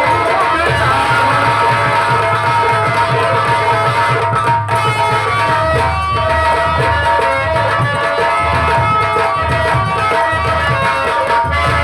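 Instrumental Indian folk music: tabla-style hand drums beating steadily under a held, sustained melody line.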